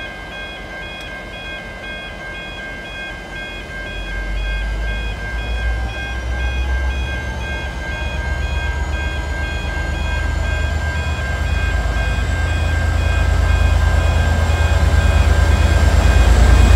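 V/Line N-class diesel-electric locomotives pulling away from a stop, their engine rumble building from about four seconds in and growing steadily louder as they draw past, with a high whine rising in pitch. A steady beeping warning tone pulses throughout.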